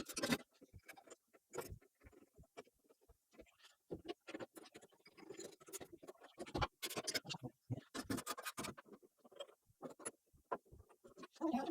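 Irregular scrapes, clicks and knocks of hand work on a race car in a workshop, parts and tools being handled, with short gaps between the noises.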